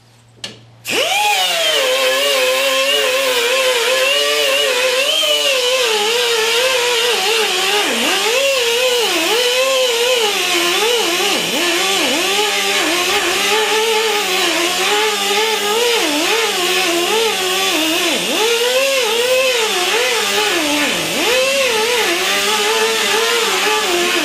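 Handheld power grinder spinning up about a second in and working the rusty steel of a riding-mower deck. Its whine dips and recovers over and over as it is pressed into the metal, over a steady gritty hiss.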